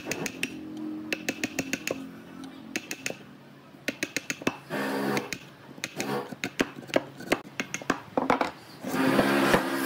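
Steel chisel driven by hammer blows into a wooden beam, chopping out a notch: bursts of rapid, sharp taps.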